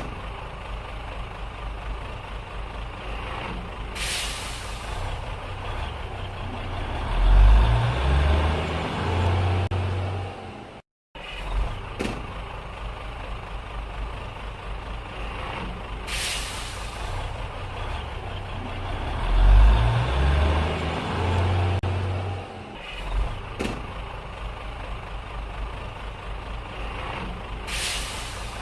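Truck engine running at idle, with three short air-brake hisses about twelve seconds apart; a few seconds after each of the first two, the engine revs up, climbing in pitch, then settles back. The sound cuts out briefly about eleven seconds in.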